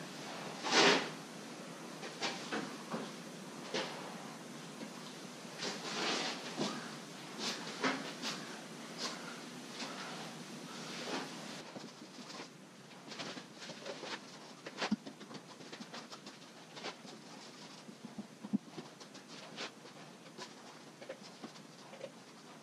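Work sounds from brushing an epoxy fill coat onto a wooden kayak deck: irregular short swishes, taps and scrapes of the brush and mixing pot, the loudest about a second in.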